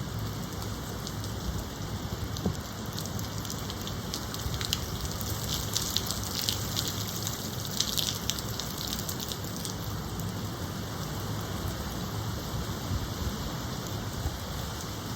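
Steady rain falling, with a spell of brighter, heavier hiss from about five to nine seconds in.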